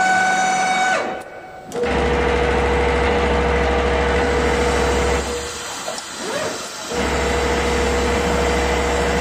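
Richpeace punching-embroidery machine starting its run. A motor whine rises and holds, then cuts off about a second in. The head then runs with a steady low hum and an even tone, stops briefly about five seconds in, and starts running again about two seconds later.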